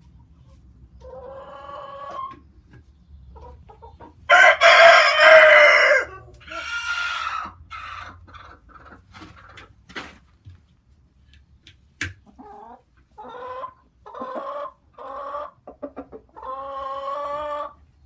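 Chickens calling: a loud crow-like call lasting under two seconds about four seconds in, then a run of shorter clucking calls. A single sharp click comes about twelve seconds in.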